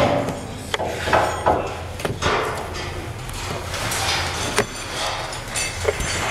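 Steel mold panels being handled: a string of irregular knocks and clatters, a few of them sharp, with some metallic ringing.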